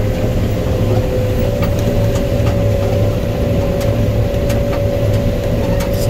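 John Deere combine running under load while harvesting standing corn, heard from inside the cab: a steady low drone with a high whine over it, and a few light ticks.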